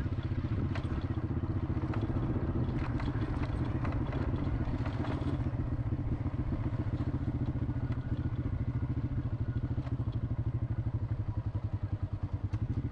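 Motorcycle engine running steadily, with scattered clattering knocks in the first few seconds.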